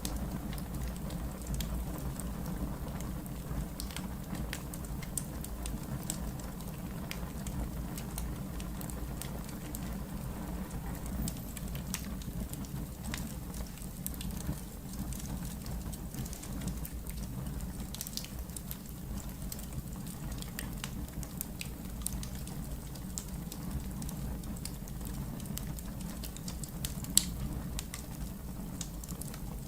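Wood fire burning in a fireplace: a steady low rumble of flames with scattered sharp crackles and pops, one louder pop near the end.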